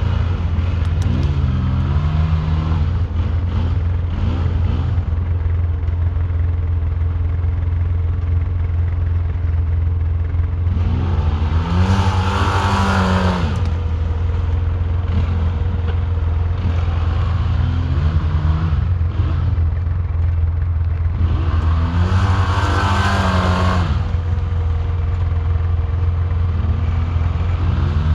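ATV engine revving again and again while mudding, its pitch climbing and dropping over a steady low drone. There are shorter revs and two longer, louder ones about 11 and 21 seconds in.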